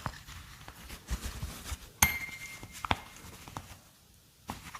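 Scattered light taps and clicks of small hard objects being handled. The sharpest click comes about two seconds in and is followed by a brief thin ringing tone.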